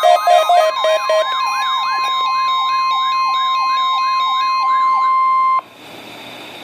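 NOAA weather radio test alarm: a warbling siren tone sweeping up and down about three times a second, over a steady high warning tone, sounding the weekly test of the warning alarm. A pulsing beep stops about a second in, the warble stops after about five seconds, and the steady tone cuts off suddenly soon after.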